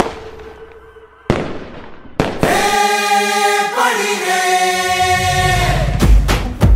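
Firework bursts, each a sharp bang that fades out, three times in the first couple of seconds. Then a held choir-like chord in the soundtrack music, shifting pitch midway, gives way to a steady thumping beat near the end.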